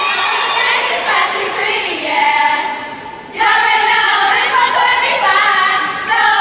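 A group of women singing together in unison, with a short break about three seconds in before the voices come back loud.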